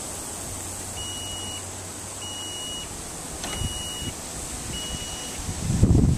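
Power liftgate on a Dodge Grand Caravan closing by itself, its warning beeper sounding four high, even beeps about one and a quarter seconds apart, with a single click between the second and third. Near the end a loud low rumble comes in.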